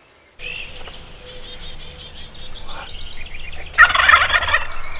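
A Rio Grande wild turkey gobbling once, a loud rapid rattling call about four seconds in, over songbirds chirping.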